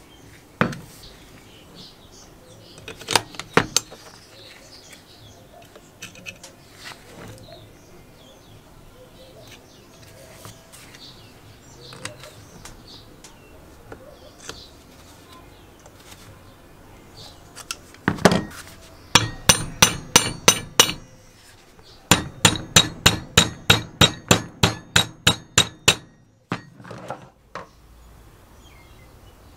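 Steel hand tools working on the steel bottom hook block of a manual chain hoist: scattered metal clicks and clinks as pliers fit a pin, then a loud knock, a fast run of metallic clicks, and an even train of sharp metallic strikes about four a second for some four seconds.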